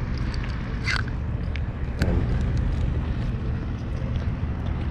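Steady low rumble of highway traffic, with a short knock about two seconds in, after which the rumble grows a little louder.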